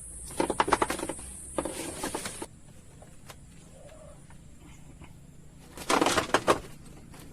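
Bird calls, likely fowl, in three short bursts: two in the first two and a half seconds and one near the end. A thin steady high whine cuts off about two and a half seconds in.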